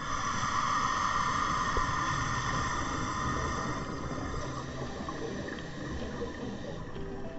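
Muffled underwater noise heard through a diving camera's housing. A hissing rush, the kind made by a scuba diver's exhaled bubbles, is strongest in the first few seconds and fades about four seconds in.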